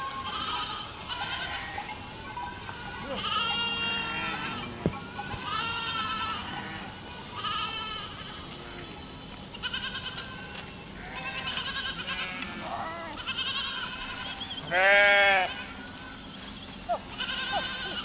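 Herd of goats bleating, one wavering call after another, some overlapping. One long bleat about three-quarters of the way through is much louder than the rest.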